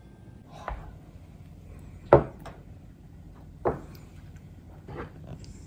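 A plastic ladle and ceramic bowls knocking against a black stone pot and the table while rice porridge is served: about five separate knocks and clinks, the sharpest about two seconds in.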